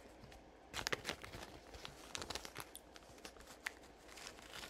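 Faint rustling and small clicks of hands handling jewelry, a cluster about a second in and scattered ticks after.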